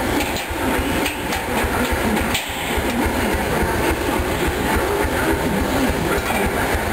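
A machine running with a rapid, even thudding rhythm.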